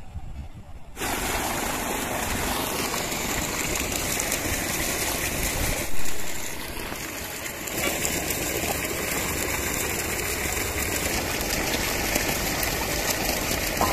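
Hands sloshing and rubbing raw chicken feet in water in a steel basin, a steady splashing that starts about a second in, with one sudden louder burst near the middle.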